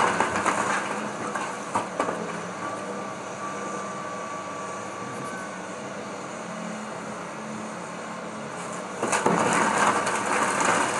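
Hydraulic excavator demolishing a wood-frame house: its engine runs steadily under the cracking of timber, and the splintering and crashing of wood grows louder about nine seconds in as the bucket tears into the wall.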